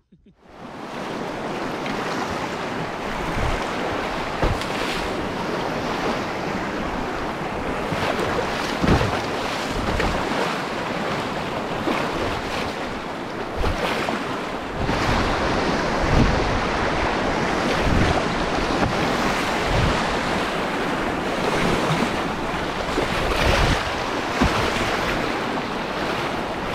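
Fast, choppy river water rushing and splashing around a spray-decked canoe running whitewater, with wind buffeting the microphone and a few low thumps.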